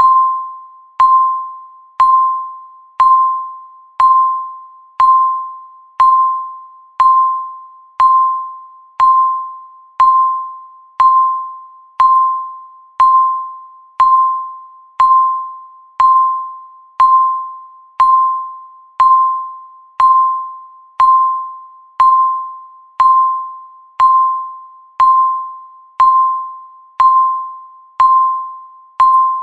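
Countdown timer's electronic tick, a short ringing beep struck once a second, each fading out before the next.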